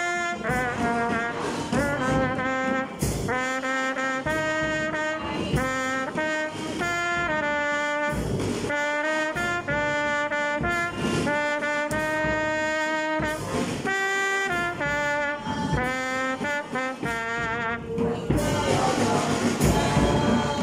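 School brass band (trumpets and other brass with bass and snare drums) playing an anthem in held chords that change about once a second, with drum strokes between phrases. About 18 seconds in the brass stops and a louder, noisy wash takes over.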